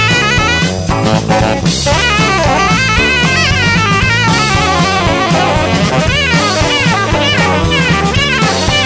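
Background music: an instrumental passage of a song, a drum-kit beat over a bass line with melody instruments on top.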